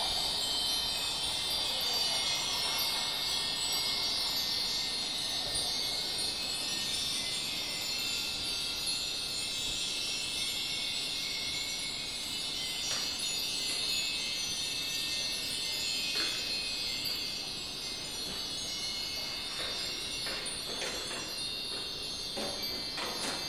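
Nambu cast-iron wind chimes (fūrin) ringing continuously, many high, clear chime notes overlapping in the breeze.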